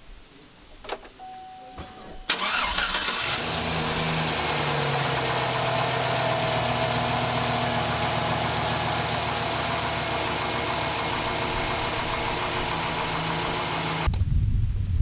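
2009 GMC Sierra's 5.3-litre V8 starting about two seconds in, after a click and a short beep: the starter cranks briefly and the engine catches. It then idles steadily on fresh oil until the sound drops away near the end.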